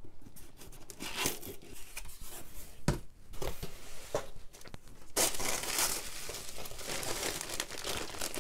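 Cardboard box flaps being opened, then tissue paper and a plastic bag rustling and crinkling as a bag of jewelry is pulled out of the wrapping. There is a sharp knock about three seconds in, and the rustling gets louder a little past the halfway point.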